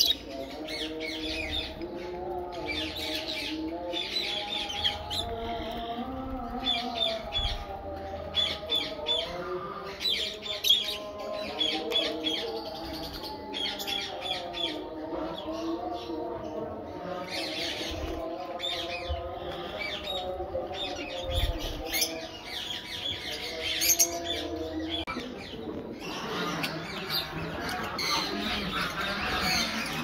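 A flock of lovebirds chirping and squawking, with short high-pitched calls in quick runs. The chatter grows denser and harsher in the last few seconds.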